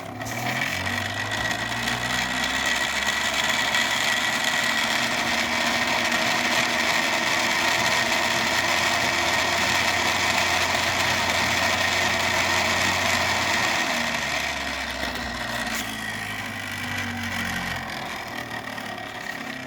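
3D-printed magnetically levitated rotor of a Hall-sensor pulse motor spinning at high speed, a loud rattling whir with a steady high whine. It runs with its shaft end still unlubricated, the racket that dry lube was later added to cure. It comes up to speed within the first couple of seconds, holds steady, then slows and drops in pitch over the last several seconds.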